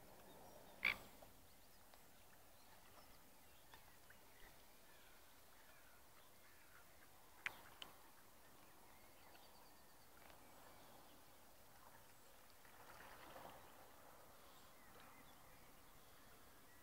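Near silence of faint lakeside ambience, broken by a few short sharp sounds: a loud one about a second in, two quick clicks around the middle, and a brief soft patch of noise later on.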